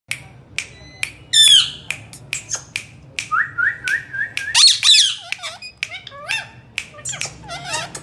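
Indian ringneck parrots calling: sharp clicks throughout, a loud squawk about a second and a half in and another about four and a half seconds in, a run of four short rising whistles just before the second squawk, and wavering warbling chatter near the end.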